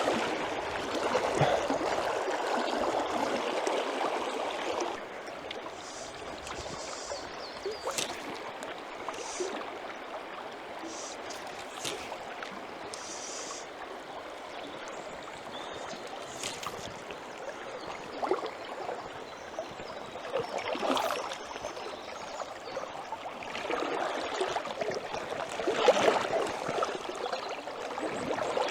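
River water flowing steadily around the wader, louder for the first few seconds, with a few short sharp ticks and brief swells of water noise scattered through.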